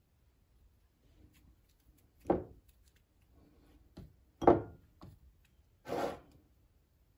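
Three short rubbing scrapes about two seconds apart, the middle one the loudest, with a couple of light clicks between them.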